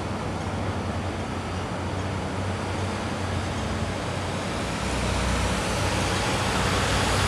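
Road traffic noise: a steady rush of tyres and engines with a low engine hum beneath, growing louder about five seconds in.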